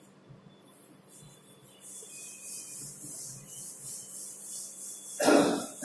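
Cloth duster wiping chalk off a chalkboard in repeated strokes, a faint rhythmic hiss. About five seconds in comes a short, loud cough.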